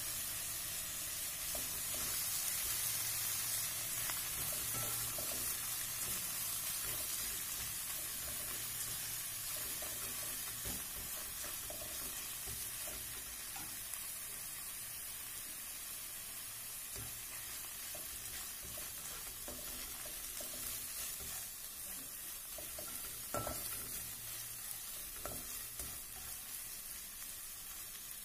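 Dried anchovies (dilis) frying with garlic and onion in shallow oil in a nonstick wok: a steady high sizzle, with a few light spatula taps and scrapes in the last few seconds.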